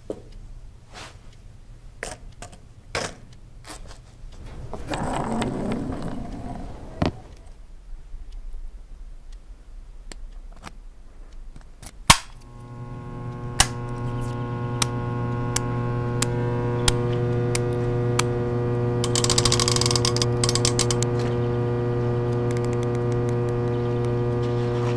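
Sound effects of a large amplifier being switched on: scattered clicks and knocks of switches, a key and knobs, then a sharp click about twelve seconds in, after which a steady electrical hum with many overtones comes up and grows louder. A brief hissing crackle sits over the hum a few seconds before the end.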